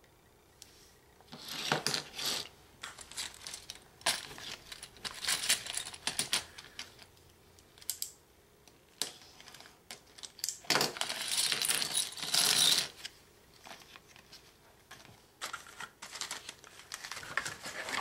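Small plastic building-kit pieces clattering and rattling against each other as a hand spreads and shuffles them across a cutting mat, in several bursts of dense clicking with short pauses between.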